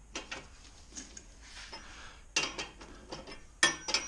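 Ratchet wrench clicking and metal clinking as the screw of an engine hoist's load leveler is turned to tilt the hanging engine, with two louder metal clanks about two and a half and three and a half seconds in.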